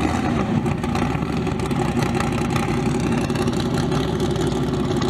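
Drag racing car engines idling steadily, an even rumble that holds at one pitch without revving.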